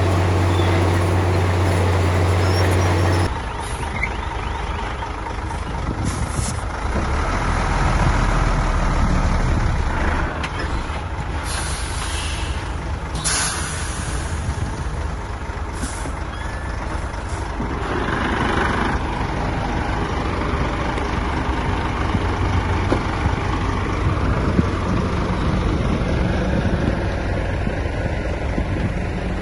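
Diesel engines of heavy earthmoving machinery, a bulldozer and dump trucks, running steadily. A few short hisses come around twelve to sixteen seconds in.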